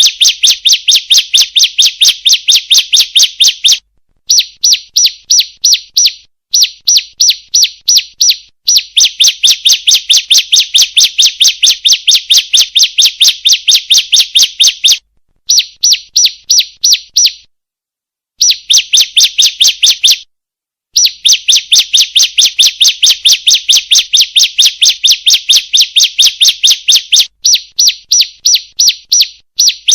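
Female bar-winged prinia (ciblek) calling: a rapid series of sharp chirps, about four a second, in runs of a few seconds broken by short pauses.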